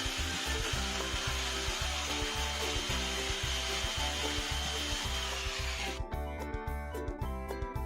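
A power tool working wood, an even hiss with a steady high whine, over background music with a steady beat. The tool noise cuts off sharply about six seconds in, leaving only the music.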